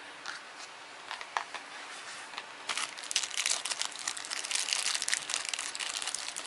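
Small clear plastic bag of toy parts handled in the fingers. A few light clicks come first, then steady crinkling of the plastic from about three seconds in.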